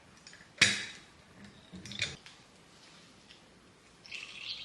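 Kitchen utensils and containers being handled: a sharp knock about half a second in, lighter clicks about two seconds in, and a soft rustle near the end.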